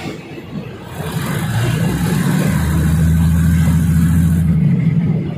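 Diesel railcar engine under the carriage, heard through an open window of the moving train. It builds to a loud steady drone about a second in and eases off near the end.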